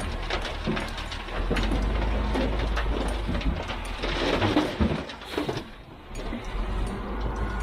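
A heavy machine's engine running with a steady low rumble, with repeated knocks and clatter over it. The rumble drops away briefly about six seconds in.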